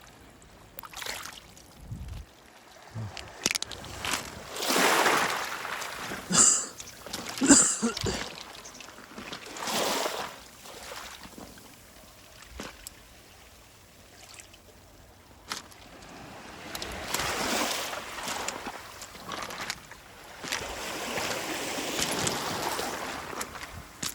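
Waves washing up a pebble beach and drawing back in surges every few seconds, with a couple of sharp clacks of stones knocking together about six and seven and a half seconds in.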